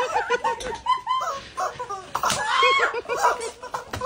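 Rubber screaming chicken toy squeezed over and over, giving a quick run of short squawks with a longer squawk about two and a half seconds in.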